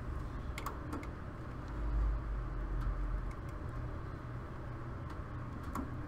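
Test-lead wires and their connectors being handled and moved on a furnace control board: a few small sharp clicks, two just under a second in and one near the end, and a low handling thump about two seconds in, over a steady low hum.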